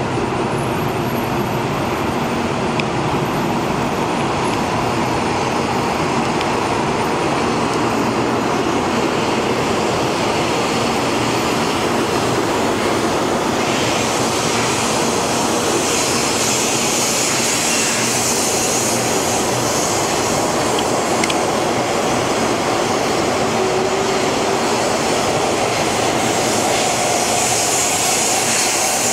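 Taiwan High Speed Rail 700T bullet train running through a station at speed: a steady rushing roar of wheels and air. A louder high hiss joins in from about halfway through.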